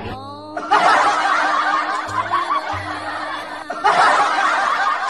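Group laughter sound effect, a laugh track that starts abruptly about a second in and again near the end, over background music.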